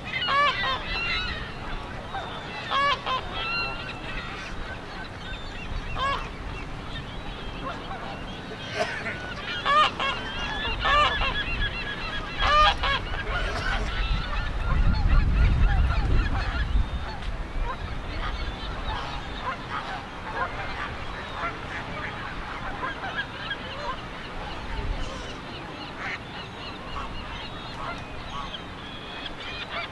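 A flock of Canada geese honking on and off, many birds calling over one another, with a low rumble swelling and fading around the middle.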